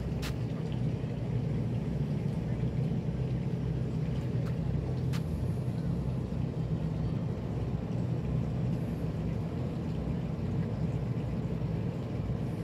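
Boat engine running steadily at low speed, a deep even rumble heard from aboard, with a few faint clicks.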